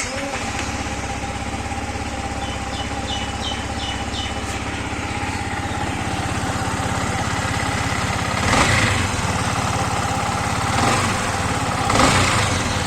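Yamaha MT-15's single-cylinder engine running with a harsh rattle (jhyar-jhyar), swelling briefly twice in the second half. The rattle comes from a stretched cam chain and a worn cam chain tensioner.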